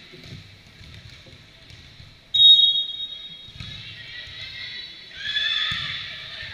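A volleyball referee's whistle blows once, sharp and loud, a little over two seconds in, then about three seconds later a burst of high-pitched shouting and cheering during the rally.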